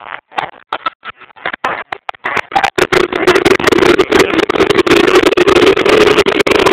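Football stadium crowd during a penalty shootout: scattered noise builds about two and a half seconds in to a loud, continuous roar with a steady droning note, harsh and crackling on the recording.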